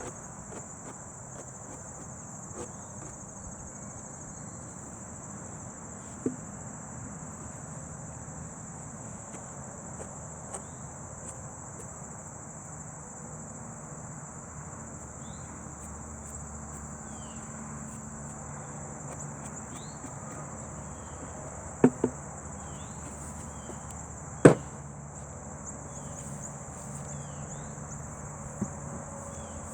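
Crickets singing in a steady high-pitched chorus, with a low hum beneath it and short bird chirps in the second half. A few sharp knocks break in, two in quick succession about 22 seconds in and the loudest about two seconds later.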